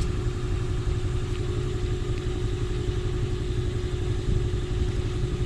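An engine idling steadily: a constant low rumble with a held, even tone over it.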